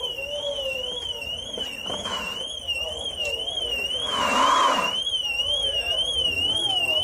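A car alarm warbling rapidly up and down in pitch, about three times a second, sounding continuously at a collision scene. Bystanders' voices are faintly heard underneath, with a louder rush of noise about four seconds in.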